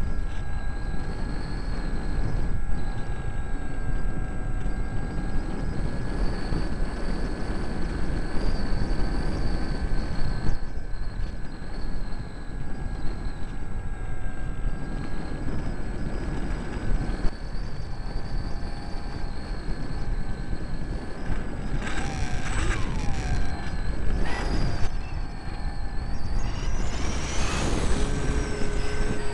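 Electric motor and propeller of a mini RC Cessna, heard from the camera on board: a steady whine over heavy wind rush. Near the end the whine sweeps sharply down in pitch twice, then rises again.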